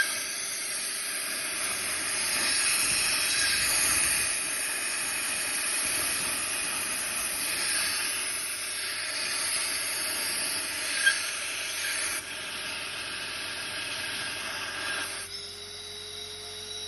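Steady hiss of compressed air blasting crushed walnut shell media, the kind used to clean carbon off direct-injection intake valves to cure misfires. There is a sharp click about 11 seconds in, and the hiss drops off about 15 seconds in.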